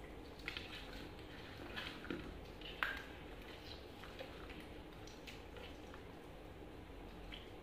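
Faint, scattered clicks and crackles of longan and lychee skins being cracked and peeled by hand, the sharpest about three seconds in, over a low steady room hum.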